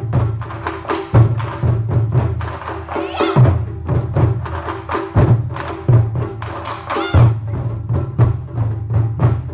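Taiko-style percussion music: rapid, sharp drum strikes and wooden clacks over a low, steady sustained tone, with a wavering higher melodic line coming in about three seconds in and again about seven seconds in.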